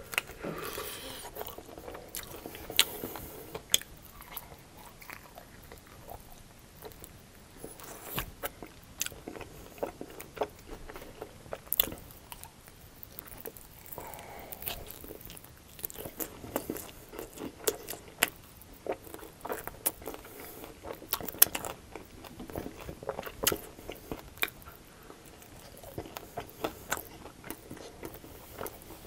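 Close-miked biting and chewing of crunchy fried chicken wings coated in sauce: repeated sharp crunches scattered between stretches of chewing.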